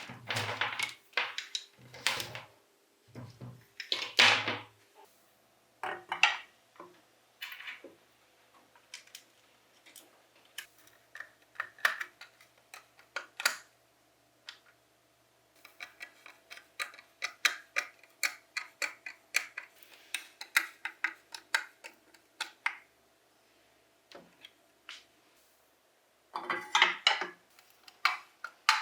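Metal bench grinder parts and hand tools clinking and tapping during reassembly. The clinks come irregularly, with a dense run of quick clicks in the middle.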